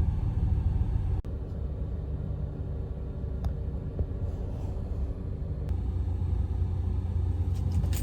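2010 Ram 1500 pickup's engine idling steadily, with a single sharp click about a second in.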